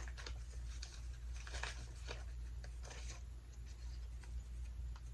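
Faint, scattered small taps and rustles of hands handling things, over a steady low hum.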